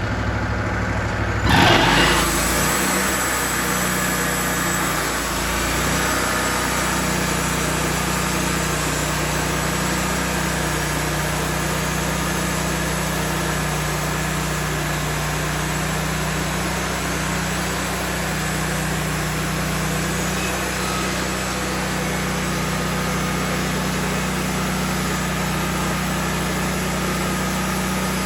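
Wood-Mizer LT40 band sawmill's engine going from idle to a higher speed about two seconds in, with a short loud burst that drops in pitch as it picks up, then running steadily as the band saw works through a poplar log.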